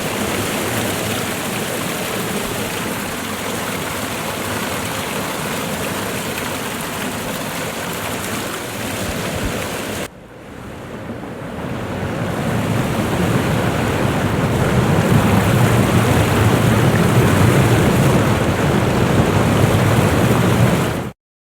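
Steady rush of falling water from a waterfall. About halfway through it cuts out and fades back in as a louder, deeper rush, which stops abruptly just before the end.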